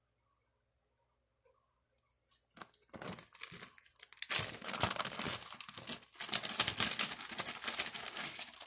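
A clear plastic bag crinkling and rustling as it is handled and pulled open, starting about two and a half seconds in after near silence and loudest in the second half.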